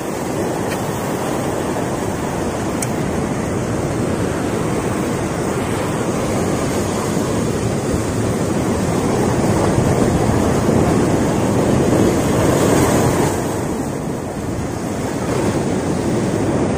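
Sea surf breaking and washing over a rocky shoreline, a continuous rushing that swells louder for a few seconds past the middle, eases briefly, then builds again near the end.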